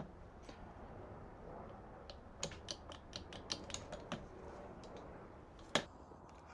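Light, sharp clicks and taps of small metal engine parts being handled: a short knock at the start, a quick run of about ten clicks in the middle, and one louder click near the end.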